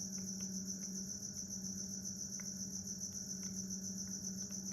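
Crickets chirping steadily in a continuous high trill, with a low steady hum underneath.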